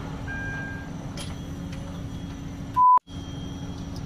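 Steady low hum with a constant droning tone and a few faint high beeps; about three seconds in, one short, loud, pure electronic beep cuts off abruptly into a split second of dead silence before the hum returns.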